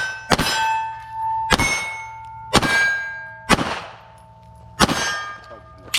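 Pistol shots at steel targets, about one a second, five in a row. Each is followed by the ringing clang of a struck steel plate.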